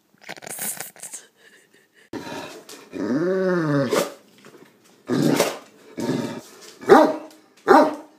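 Great Dane vocalizing to beg for a treat: a drawn-out moan that rises and falls in pitch about three seconds in, then three short, loud barks.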